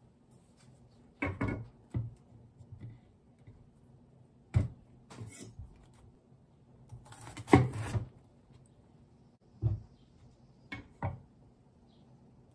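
Kitchen knife cutting a bitter melon on a wooden cutting board: scattered knocks and crunches of the blade meeting the board and the melon being handled, the loudest about seven and a half seconds in.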